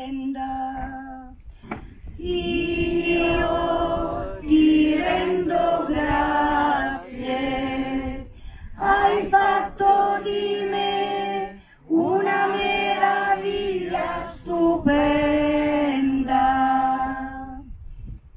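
A church choir, mostly women's voices, singing a slow responsorial psalm refrain in long held phrases with short breaths between them.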